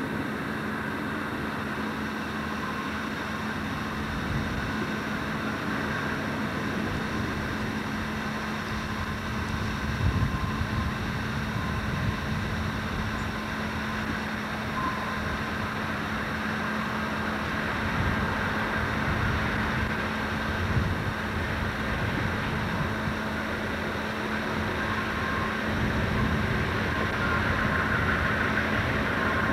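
Lead GE diesel locomotives of a heavy coal train approaching from a distance, a steady engine drone that grows gradually louder near the end as the units draw closer.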